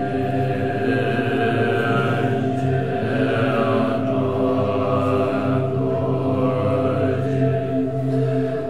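A group of Tibetan Buddhist monks chanting prayers in unison: a low, steady drone of many voices, held with little break.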